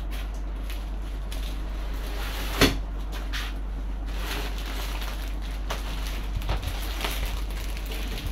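Rustling and crinkling of packaging as plastic-wrapped model parts and cardboard boxes are handled, with one sharp knock about two and a half seconds in.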